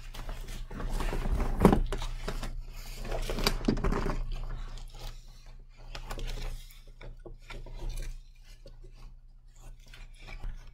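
Handling noise of airsoft gear: cloth rustling and straps, buckles and hard plastic knocking together in irregular bursts, loudest in the first four seconds, over a steady low electrical hum.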